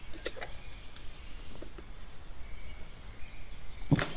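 Low steady background noise of a room microphone, with a few faint clicks and one sharper click near the end.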